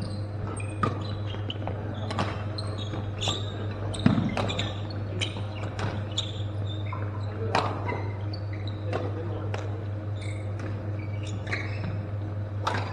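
Badminton rackets striking shuttlecocks in a large hall: sharp cracks roughly once a second, with echo, over a steady low hum.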